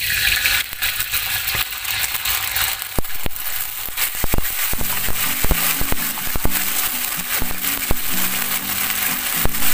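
Tomato sauce hitting hot oil and garlic in a steel wok, a sizzle that fades over the first second. Then a metal spatula stirs, scraping and clicking against the wok.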